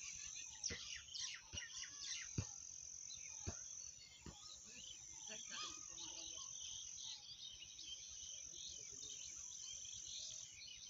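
Crickets chirring in a steady, high, continuous trill, with several sharp knocks in the first four seconds.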